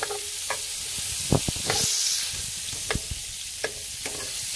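Cut vegetables frying in olive oil and chicken drippings in a pan, sizzling steadily, with a few light knocks of a utensil against the pan.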